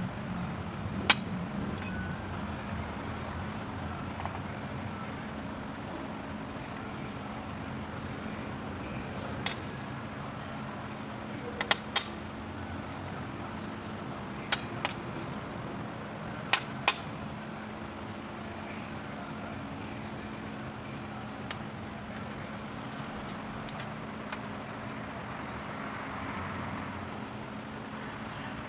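A scatter of short, sharp clicks and taps, a few coming in quick pairs, over a steady low hum.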